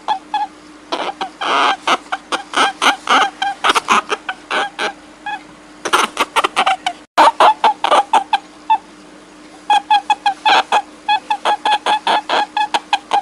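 Rapid runs of short, pitched animal cries, several a second, with brief pauses between the runs and a steady low hum underneath.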